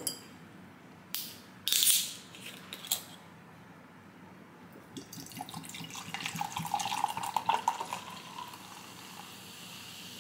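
A kombucha bottle's metal screw cap is twisted off, with a short hiss of escaping gas about two seconds in. Then the kombucha is poured into a glass tumbler, splashing and fizzing as it fills over the last five seconds.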